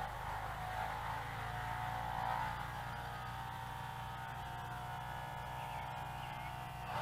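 Faint, steady whine of a micro RC plane's 4x12 mm coreless motors and props in flight, swelling slightly in pitch about two seconds in.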